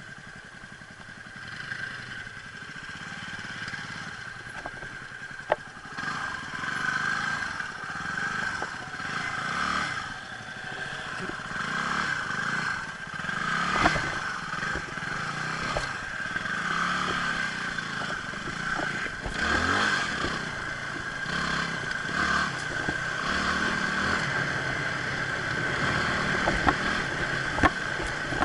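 Motorcycle engine running at low speed on a rough gravel forest road, the revs rising and falling, with stones clattering and scraping under the tyres and a few sharp knocks.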